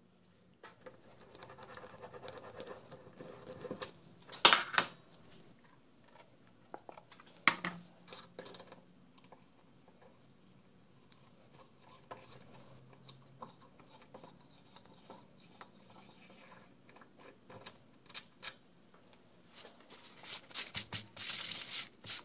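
Light handling sounds on a steel welding table: scattered scraping and clicks from metal chips and tools around a freshly drilled hole being threaded with a hand tap, with two sharp knocks about four and a half and seven and a half seconds in. Near the end, a paper towel rubs and crinkles in quick strokes as cutting fluid is wiped off.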